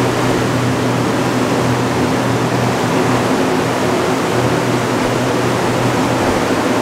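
Loud, steady machinery noise in a dyno cell: an even rush of air over a low, constant hum, with no change in pitch, cutting off abruptly just after the end.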